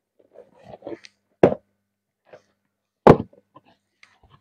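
Cardboard shoebox being handled and opened: two loud knocks, about a second and a half and three seconds in, with a few light scuffs of cardboard before them.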